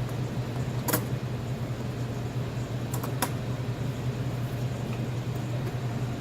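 Steady low machine hum with a few light clicks, one about a second in and two close together about three seconds in, as the shake machine's faceplate nuts are hand-tightened.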